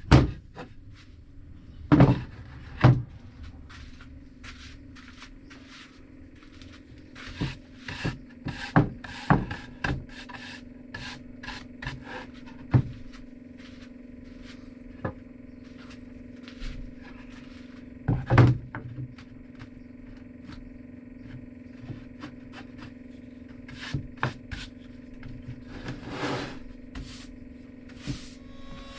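Pallet wood being handled and worked by hand: irregular knocks and scraping strokes, the loudest knocks about 2, 3 and 18 seconds in, over a steady low hum.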